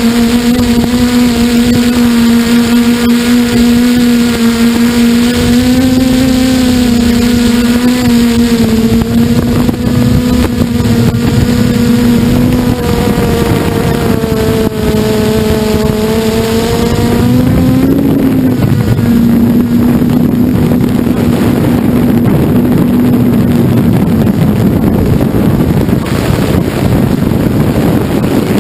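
Electric motor and propeller of an FPV model aircraft, heard from its onboard camera: a steady buzzing whine that wavers slightly in pitch. After about eighteen seconds the higher whine fades and wind rushing over the camera takes over.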